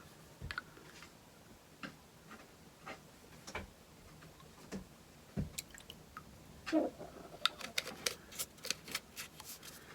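Scattered light clicks and taps of plastic being handled, growing busier in the second half: hydroponic nutrient-solution bottles being opened and capfuls measured into the water tank.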